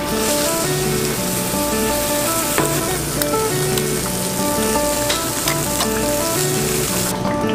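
Eggs frying in small pans on a hot griddle, a steady crackling sizzle that cuts off suddenly near the end. Background music plays underneath.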